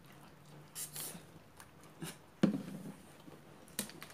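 Scattered short rustling and handling sounds, with one sharp thump about two and a half seconds in, over a faint steady low hum.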